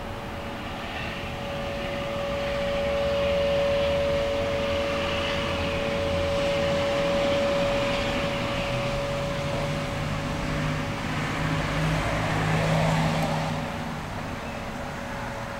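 An unexplained loud drone in the sky, like a long siren that never stops: a steady mid-pitched hum with a lower tone that grows stronger about two-thirds of the way in. A broad rushing wash swells and fades under it, like distant traffic.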